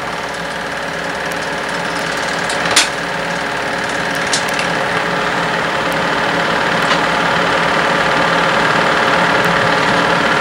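Home-movie film projector running steadily, its mechanism giving an even mechanical rattle, with a couple of brief clicks in the first half.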